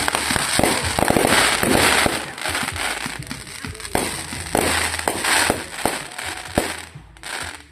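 Aerial fireworks going off in a dense barrage of bangs and crackling, heaviest in the first few seconds, with single sharp reports later on, thinning out near the end.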